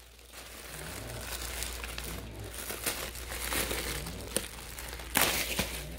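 Plastic packaging, a bubble-wrap bag and a poly mailer, crinkling and rustling as it is handled and pulled open, with a louder burst of crinkling near the end.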